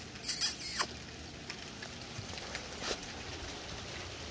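Steady patter of a hail storm, with scattered sharp ticks. A brief louder hiss comes near the start.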